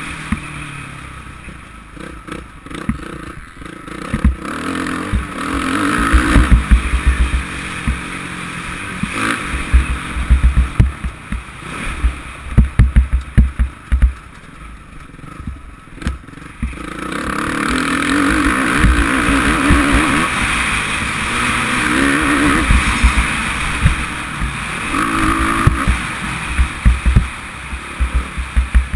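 Suzuki RM-Z450 four-stroke single-cylinder motocross bike engine revving hard and easing off as it is ridden over a rough dirt track. It drops back from about a third of the way in and pulls hard again from just past halfway. Frequent low thumps of wind and track knocks hit the helmet-mounted microphone.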